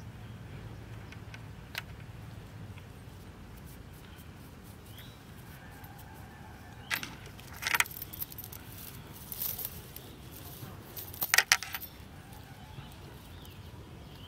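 Steel chain clinking and rattling as it is handled, with a single clink about two seconds in and short bursts of jangling around seven to eight seconds and again about eleven seconds in. Faint bird chirps over a low steady outdoor background.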